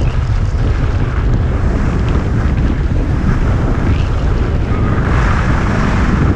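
Wind buffeting an action camera's microphone (GoPro Hero 5 Session) as the skier runs down a groomed piste, a steady low rumble over the hiss of skis sliding on the snow, which swells a little about five seconds in.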